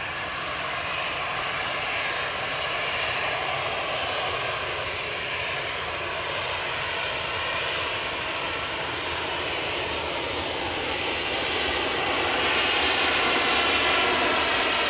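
Boeing 737-700 business jet's CFM56-7 turbofan engines running at taxi power as the aircraft taxis and turns onto the runway: a steady jet rush with a faint whine, growing a little louder near the end as it swings side-on.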